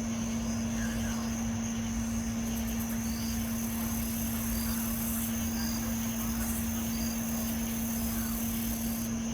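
A steady, unexplained hum held at one low pitch, over a low rumble. Faint insect chirps sound in the background.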